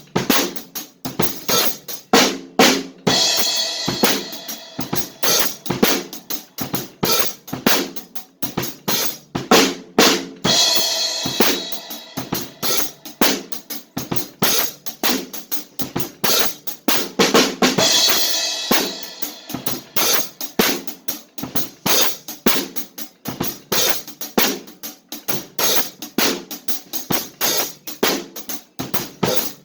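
Drum kit played hard in a steady, dense beat, with snare, bass drum and cymbal or hi-hat hits.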